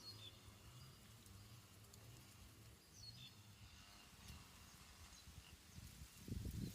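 A few faint, short bird chirps over a near-silent outdoor background, with a low rumble coming in near the end.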